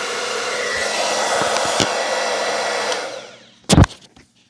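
BERTA 1875 W ionic hair dryer running on high heat, a steady rush of blown air. About three seconds in it is switched off and winds down quickly, followed by a sharp loud knock.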